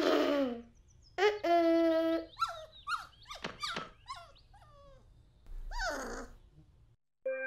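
Cartoon pet dog vocalising: a string of short whines, grunts and yips that slide up and down in pitch, then a final falling whine about six seconds in.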